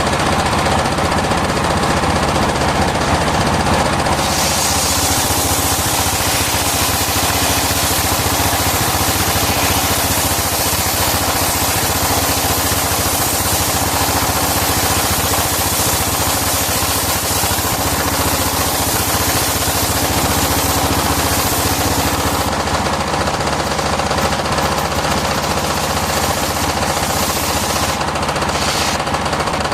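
Circular sawmill running steadily with a rapid knocking drone. From about four seconds in until about 22 seconds, a loud high hiss joins it as the blade cuts through wood.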